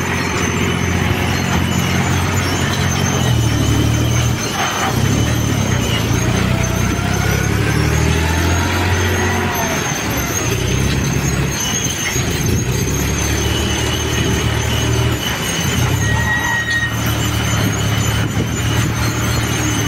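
A John Deere tractor's diesel engine runs under load while the front loader digs, lifts and tips. Its steady low note dips and shifts several times as the work changes. Higher-pitched tones waver and glide over it, loudest in the middle.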